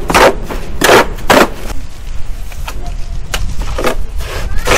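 Small hoe scraping and dragging through wet sand-and-cement mortar in a plastic tub. Three quick strokes come in the first second and a half, then a few more spaced strokes near the end.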